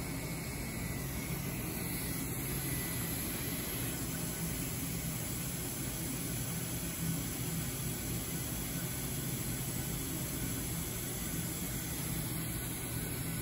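Steady running-machinery noise from CNC router equipment: an even drone with a low hum and a hiss, unchanging throughout.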